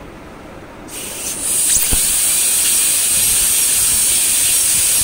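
Air-turbine high-speed dental handpiece with water spray starting about a second in, with a quick rising whine, then running steadily with a loud high hiss. It is driving a flame-shaped diamond bur to reduce the palatal surface of an incisor.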